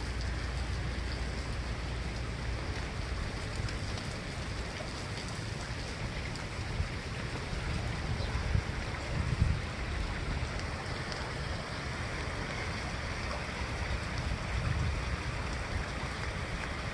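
Heavy rain falling on flooded pavement and standing water, a steady hiss of drops, with a few brief low rumbles about halfway through.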